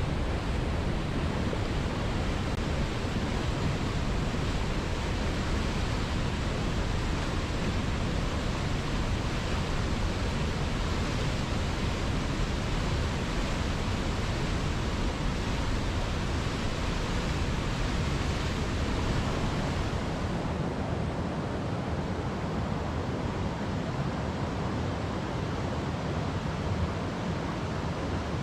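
Waterfall: a steady rush of falling water. About twenty seconds in, the rush changes, losing some of its deepest rumble and top hiss.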